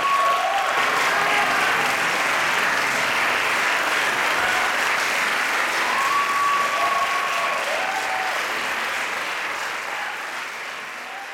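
Audience applauding steadily, with a few brief calls rising over the clapping; the applause fades away near the end.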